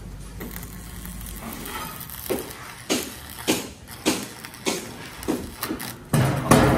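Regular knocks on the steel floor decking overhead, about one every 0.6 seconds, starting about two seconds in, then a louder clatter near the end.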